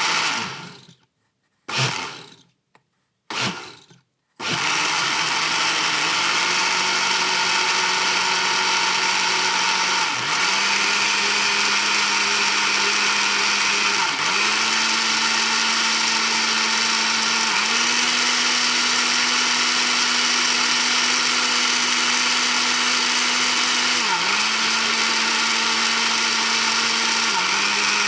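Electric kitchen blender: three short pulses that each die away, then running continuously, its motor pitch stepping to a new speed several times as it is switched between speed settings.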